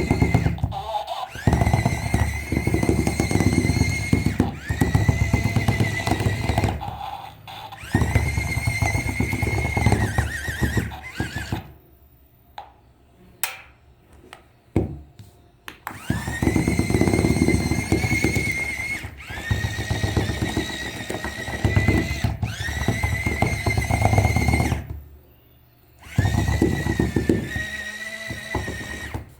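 Electric toy running in repeated bursts of about two seconds: a steady high whine with overtones over a low motor rumble, each burst swooping up at its start, with short gaps between and a pause of a few seconds midway.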